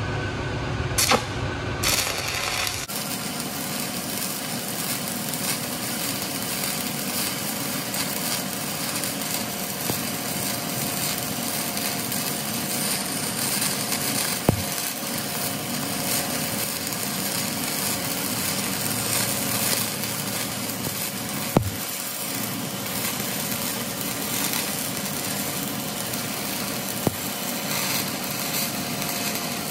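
Shielded metal arc (stick) welding with a 5/32-inch E8010 electrode at 130 amps: the steady crackle and hiss of the arc running the hot pass on a pipe joint. After a couple of short clicks, the arc settles in about three seconds in, and a few sharp snaps stand out later on.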